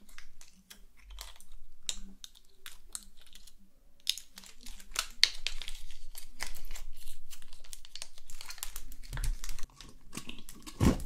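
Long artificial nails poking and stirring thick glittery slime in a small jar: irregular sticky crackling and squishing with light clicks, busiest in the middle, and two dull knocks near the end.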